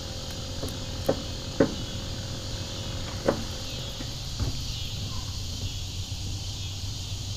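A steady chorus of insects, crickets or similar, shrilling. Over it come a few sharp knocks, about a second in, half a second later, and again around three and four seconds, from handling the fishing rod and rig.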